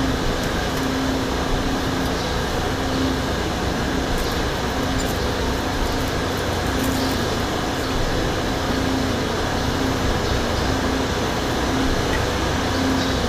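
A steady machine hum, like a fan or air conditioner, with a low tone that swells and fades about once a second. A few faint clicks sound a few seconds in.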